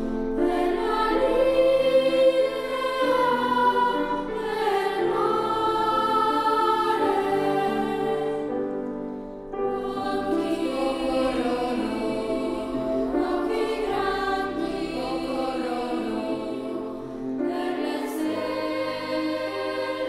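Children's choir singing over instrumental accompaniment, in long held notes, with a short break between phrases about halfway through.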